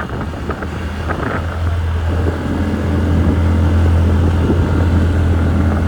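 TVS Ntorq 125 scooter's single-cylinder engine running under way, growing louder and fuller about two and a half seconds in.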